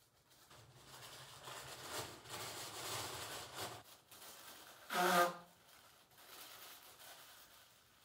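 Paper napkin rustling as it is unfolded and handled, then about five seconds in a short, louder pitched sound from the man's nose or throat as he brings the napkin up to his face.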